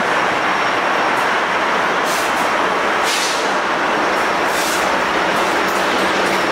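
A train rolling past: a steady, loud noise of wheels on rail with a low hum under it and a few short hisses.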